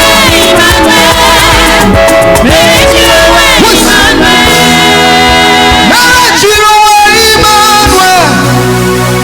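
Live gospel praise music: a singer leading a praise song over band accompaniment.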